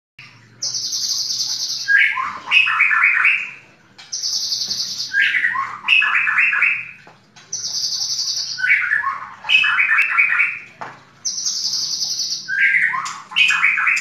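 White-rumped shama (murai batu) singing the same loud phrase four times, about every three and a half seconds: each is a held, high, rattly note followed by a quick falling run of choppy lower notes. This is the loud, repeated 'tembakan' delivery that shama keepers prize.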